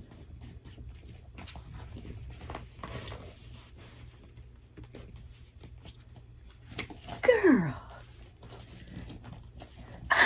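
Rustling and scraping of a knee-high boot being worked up over a leg. About seven seconds in there is a short, loud sound that falls in pitch, and a sharp click comes at the very end.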